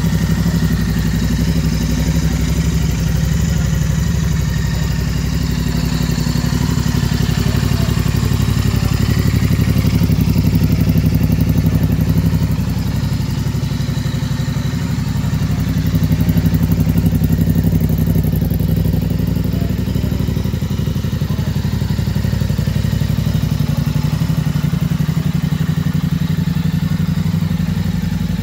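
Royal Enfield Interceptor 650's parallel-twin engine idling steadily.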